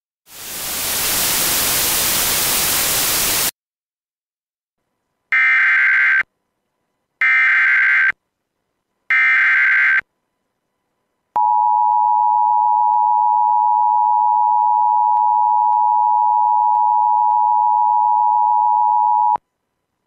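A burst of static hiss for about three seconds, then the three shrill warbling data bursts of an Emergency Alert System (SAME) header, each about a second long, then the EAS two-tone attention signal held steady for about eight seconds before it cuts off. The header and attention tone mark the start of an EAS alert.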